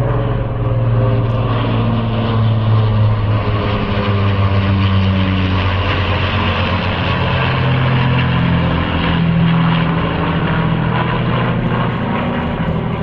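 Rolls-Royce Merlin V12 piston aero engines of a propeller aircraft flying overhead: a loud, steady low drone of several tones whose balance shifts slowly.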